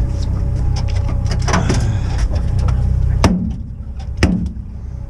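Boat motor running with a steady low hum that drops away about three seconds in; two sharp knocks follow about a second apart.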